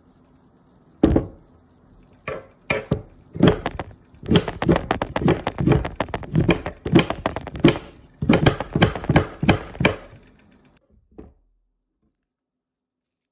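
Knife chopping vegetables on a cutting board: a few separate strokes, then a steady run of about two to three chops a second that stops about ten seconds in.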